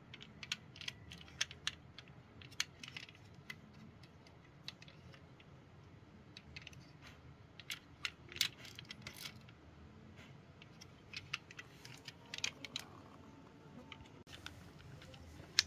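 Small toy vehicles being handled: scattered light clicks and clinks of hard toy parts knocking together, thicker in two short clusters, over a faint low hum.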